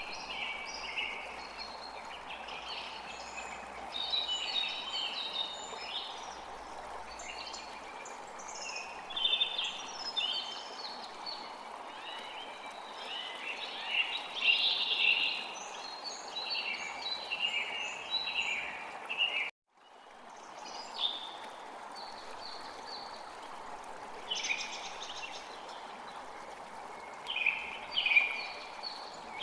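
Several birds chirping and singing over a steady rush of flowing water. The sound cuts out for a moment about two-thirds of the way through.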